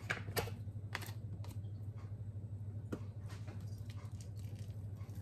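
Spatula scraping and knocking against a stainless steel pot of sesame seed mixture, several sharp clicks in the first three seconds, then softer rustling as a hand works the mixture, over a steady low hum.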